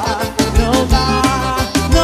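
Live band playing upbeat gospel praise music. A drum kit and bass guitar keep a steady beat under keyboard and guitar lines.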